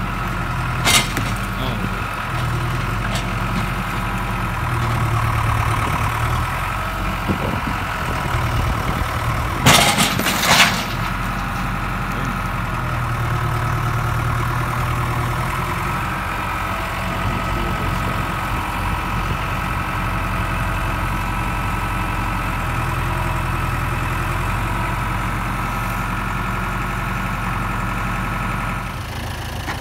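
The engine of a large machine running and working harder in several surges as it rams an apple tree over. About ten seconds in there is a short cluster of sharp loud cracks, the tree's wood snapping.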